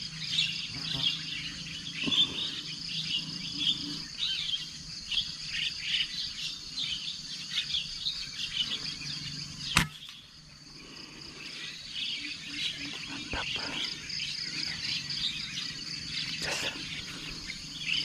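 Dense chirping of birds and insects, broken about ten seconds in by a single sharp crack of an air rifle shot.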